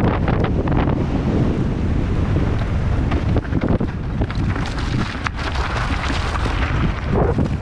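Wind buffeting a helmet-mounted camera's microphone at downhill racing speed, mixed with the clatter and rattle of a mountain bike over loose rocky ground, with frequent sharp knocks from the wheels hitting stones.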